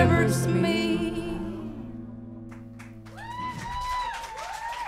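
A live band's final chord ringing out and fading away over about two seconds, then audience applause with whoops and cheers starting about three seconds in.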